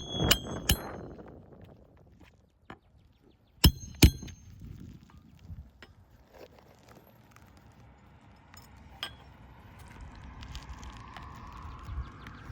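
Small hard objects clinking together: two sharp ringing clinks just after the start, two more about four seconds in, and a lighter tick near nine seconds. Between them there is only a faint hiss.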